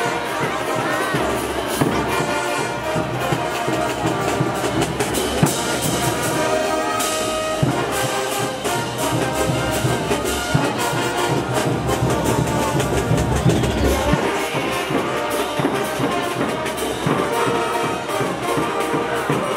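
Brass band playing Tinku dance music: trumpets and trombones over drums.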